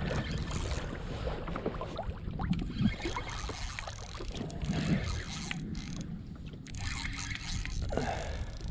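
Wind buffeting the microphone, with small waves slapping and splashing against the kayak hull in scattered short knocks.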